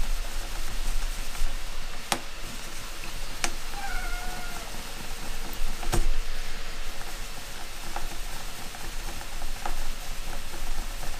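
A cat meowing faintly from another room, one drawn-out call that bends in pitch about four seconds in. Under it runs the soft steady rub of a cloth polishing a resin block with abrasive paste, broken by a few sharp clicks.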